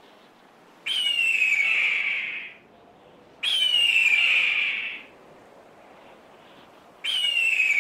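A hawk screaming: two long, harsh calls that each start sharply and slide down in pitch, with a third starting near the end.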